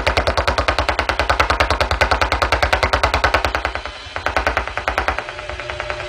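Rapid, evenly spaced clicking pulses, about ten a second, picked up by a crystal-diode radio held near a wireless modem: the modem's electromagnetic pulses, heard as a 'woodpecker sound'. The pulsing weakens about four seconds in, then carries on fainter.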